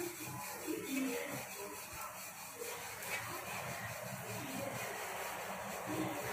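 Wooden rolling pin rolling out a flour-dusted, potato-stuffed paratha on a steel plate: a steady, soft rubbing.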